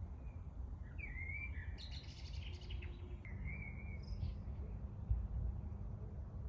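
Several birds chirping and calling, with a few short whistled calls and a quick burst of chirps in the first half, over a steady low rumble. A brief low thump comes about five seconds in.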